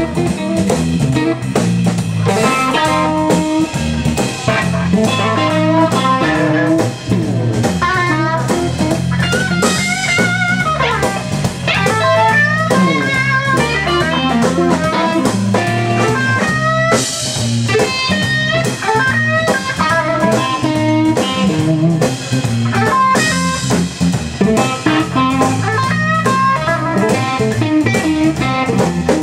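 Live blues band: electric guitars playing lead lines with string bends and vibrato over drum kit and bass.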